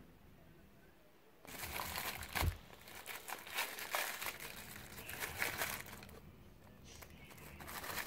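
Packaging crinkling and rustling as it is handled and opened, likely the wrapping of a new piston ring set, with a single sharper knock about two and a half seconds in.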